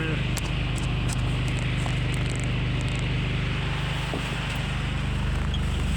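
2008 Mazda BT-50's 3.0-litre four-cylinder turbo diesel idling steadily with an even clatter, running smoothly.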